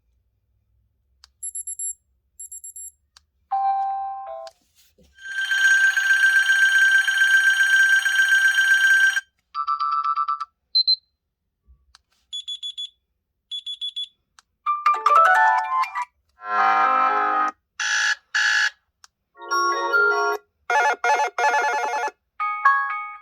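HTC U23 Pro smartphone playing its built-in electronic tones one after another, each cut short with a brief silence before the next. Two quick high double beeps, then a long buzzy tone over about four seconds, a few short chimes, and in the second half a run of busier melodic jingles.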